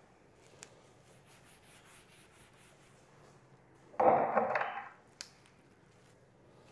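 Whiteboard duster rubbing across a whiteboard, wiping off writing, faint. About four seconds in comes a loud knock lasting under a second, then a single sharp click.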